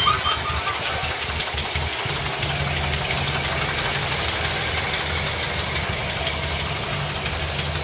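Blue Bird Chevrolet school bus engine idling steadily.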